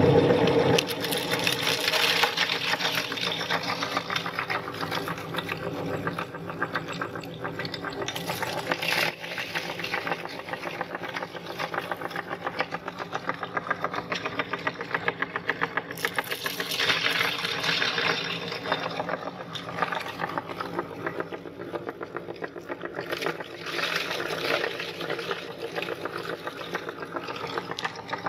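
Meat grinder running steadily as it grinds orange jelly candies: a continuous mechanical whir with a fast, even rattle.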